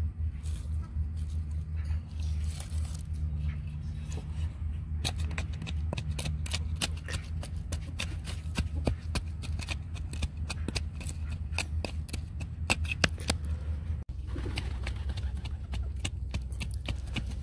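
The end of a wooden board tamping loose red clay soil around a fence post, a quick irregular run of dull thuds that packs the backfill firm. The thuds come thickest through the middle. A steady low hum runs underneath.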